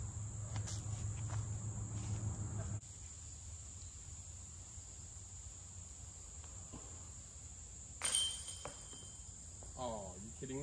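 A disc golf putt strikes the basket's metal chains about eight seconds in with a sudden loud clank and a brief ringing jingle; the disc chains out instead of dropping in. Insects buzz steadily throughout.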